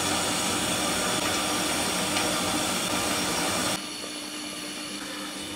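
Curry gravy of water, fried potatoes and spices boiling in the cooking pot: a loud, steady, even noise that cuts off suddenly about four seconds in to a quieter steady simmer.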